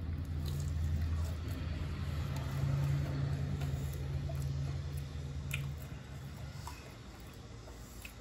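Wet, squishy chewing with small scattered clicks, over a steady low hum that fades out about six seconds in.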